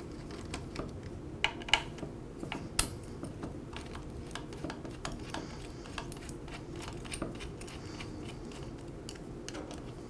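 Light metal clicks and clinks of a Phillips screwdriver turning out the screws that hold a string trimmer's carburetor, and of the loosened carburetor and screws being handled. A few sharper clicks come between about one and a half and three seconds in.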